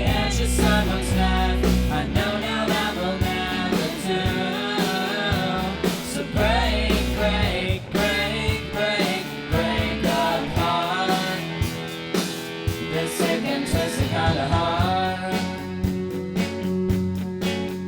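A rock band playing live: guitars, bass and drums, with a lead line that bends up and down in pitch. The drum hits come thicker near the end.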